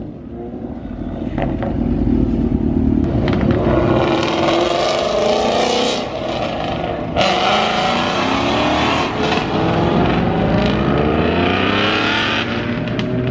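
Several performance car engines revving and accelerating away, their engine notes rising again and again and overlapping.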